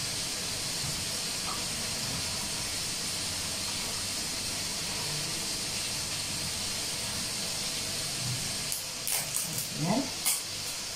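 A steady background hiss, with a few light clicks and a short rising sound near the end.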